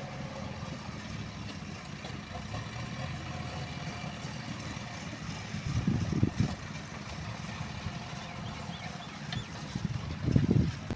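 JCB 3DX backhoe loader's diesel engine running steadily at a distance while the machine drives and scrapes soil with its front bucket, with brief louder low rumbles about six seconds in and again near the end.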